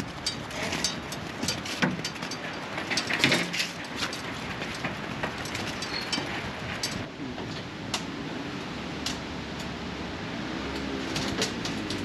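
Lambs jostling along a steel-sided sheep race: a busy clatter of knocks and clicks from hooves and bodies bumping the metal panels, thickest in the first half and thinning out later, over a steady background rush.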